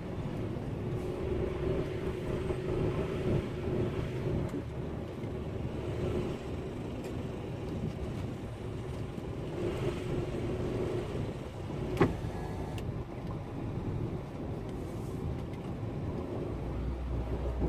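A heavy vehicle's engine running steadily in the background, a low even rumble, with one sharp click about twelve seconds in.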